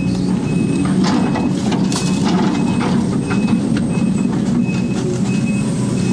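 Case 250D excavator's diesel engine running steadily under load as the machine swings and dumps a bucket of dirt, heard from inside the cab. A short, high beep repeats about every half second, with scattered knocks.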